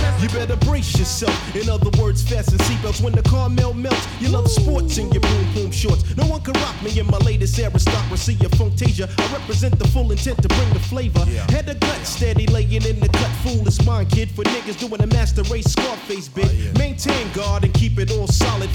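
Hip hop backing music with rapping over a steady beat and heavy bass.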